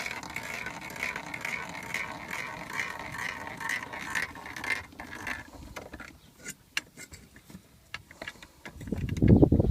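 Car jack being lowered, making a steady rhythmic mechanical rattle that stops about five seconds in, followed by scattered clicks and a loud low thud near the end.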